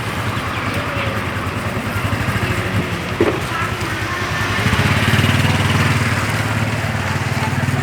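A small engine running with a fast, even low pulse, growing louder about five seconds in. There is a single short knock about three seconds in.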